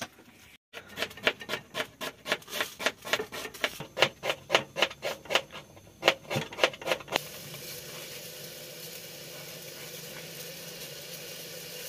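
Rapid knocking from cooking work, about three or four knocks a second for some six seconds, then a steady frying hiss from the stove.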